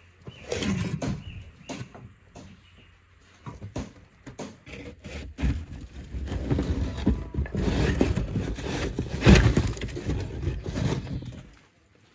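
A metal spatula scraping and chipping a dried clay seal off the lid of a clay tandir oven, with many scattered knocks and crumbling. The scraping grows busier toward the middle, with the loudest knocks and grating coming as the lid is worked loose and lifted off the oven's rim.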